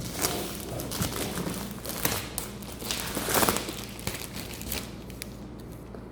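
Packaging being handled and unwrapped: irregular crinkling and rustling with scraping, loudest about three and a half seconds in and settling down near the end.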